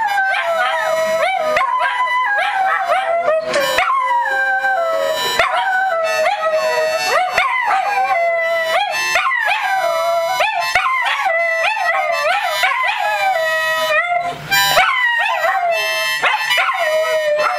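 Several dachshunds howling together: long, wavering howls that slide up and down in pitch and overlap, over and over without a break.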